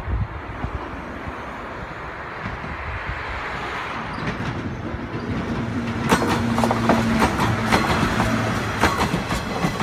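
JR West 105 series electric train approaching and passing close by, its running noise building from about four seconds in. From about six seconds in, rapid clicks of the wheels over rail joints come with a steady hum as the cars go past, and wind buffets the microphone at the start.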